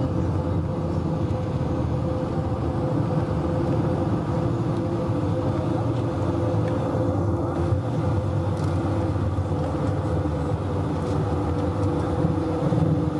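Cabin noise inside an Airbus A220-300 on the ground after landing: its Pratt & Whitney geared turbofan engines humming steadily over a low rumble.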